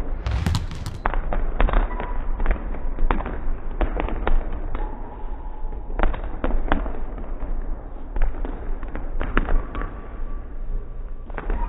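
Many basketballs bouncing on a sports-hall floor and hitting rim and backboard: irregular, overlapping thuds that echo in the large hall.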